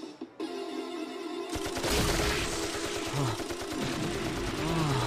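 Arcade zombie-shooting game's gunfire sound effects: rapid automatic fire in a dense continuous stream, setting in about a second and a half in, over a wavering electronic tone.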